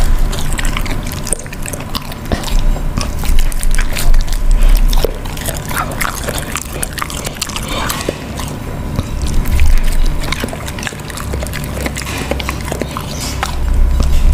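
Dog chewing and licking up slices of raw meat close to the microphone: wet, irregular bites and smacks with clicks of the teeth, louder in stretches.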